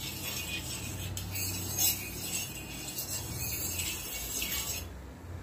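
Steel spoon scraping and rubbing across a hot iron tawa, spreading oil over it; a light hissy scraping with a few louder strokes that stops near the end.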